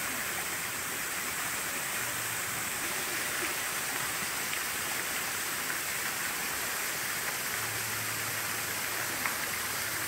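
Steady rush of water from a tall three-tier waterfall, about 45 m high, spilling down rock ledges into a pool.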